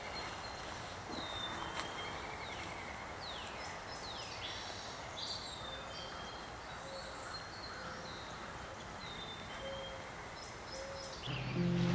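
Several wild birds calling and chirping over a steady outdoor hiss, with quick downslurred whistles and a few lower repeated notes. Music comes in near the end.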